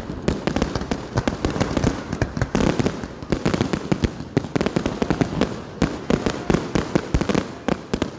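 Aerial fireworks going off in a dense, rapid barrage of many overlapping loud bangs.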